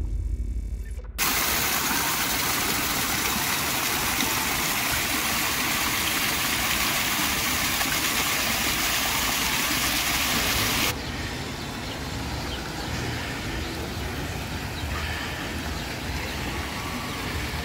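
Fountain water splashing into a pool, heard as a loud, steady rush of noise. About ten seconds in it drops to a softer hiss. A low rumble fades out in the first second.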